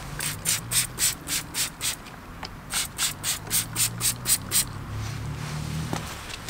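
Trigger spray bottle of tyre dressing squirted onto a scooter tyre: a short hiss with each squeeze, about four a second, in two runs with a pause of about a second between them.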